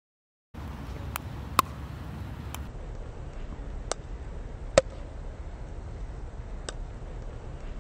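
Pickleball paddle striking a plastic pickleball with two sharp pocks, about 1.5 s and 5 s in, among fainter clicks of the ball bouncing on the hard court. A steady low rumble runs under it, starting about half a second in.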